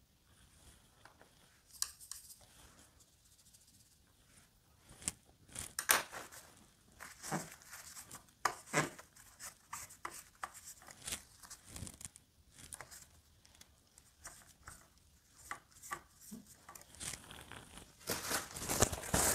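Soft handling sounds of watercolour painting: a paintbrush scrubbing and tapping as it mixes paint on the palette and lays swatches on paper, in scattered scrapes and clicks, with a denser stretch of rubbing near the end.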